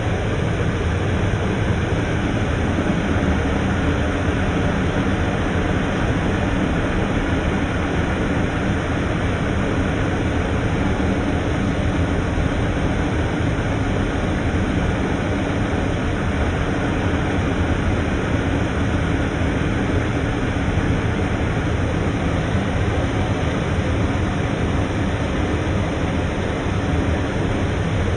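Paddy-to-rice milling machine running steadily: a loud, even mechanical noise with a low hum underneath.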